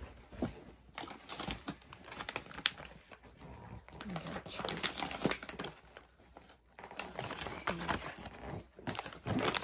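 Paper and plastic packaging crinkling and rustling as a paper insert and bags of dog treats are handled, in irregular crackly bursts.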